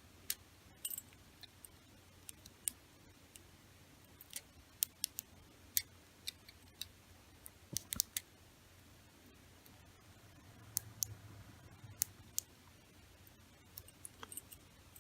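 Small metal tools clicking and tapping against a padlock's lock cylinder while it is being taken apart, in scattered, irregular sharp clicks.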